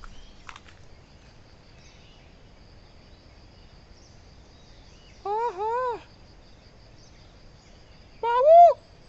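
Steady high-pitched insect drone of the forest, broken by two short rising-and-falling calls about five seconds in and a louder single call near the end.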